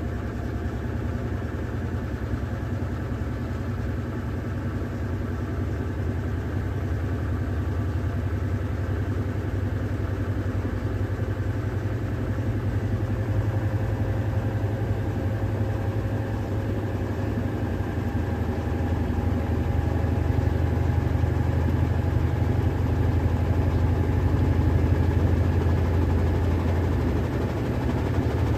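Electrolux Ecologic 12 kg top-loading washing machine on its intermediate spin: a steady low hum from the motor and spinning drum, its pitch creeping slowly upward and growing gradually louder as the spin speeds up.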